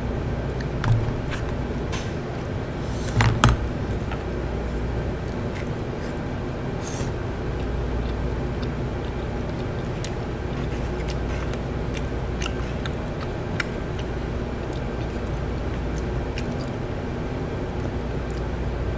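Chopsticks and a spoon clicking and clattering against bowls and plastic food containers, with a louder clatter about three seconds in, over a steady low machine hum with several held tones.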